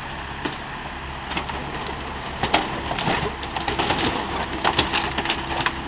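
Komatsu excavator's diesel engine running steadily while its bucket and thumb work on an old car body, with irregular metallic cracks, knocks and creaks of sheet metal being bent and torn, growing thicker from about halfway through.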